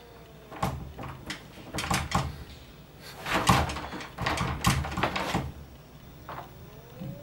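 A door's lever handle being yanked and jiggled again and again, its latch rattling and clicking in bursts: the door is locked and will not open.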